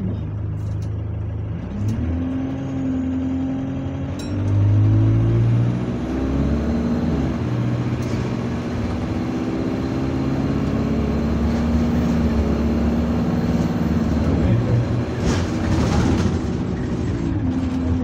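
City bus engine heard from inside the passenger cabin, pulling away and accelerating. Its note rises about two seconds in, is loudest a few seconds later, drops in pitch as the gearbox shifts up, then runs steady at speed.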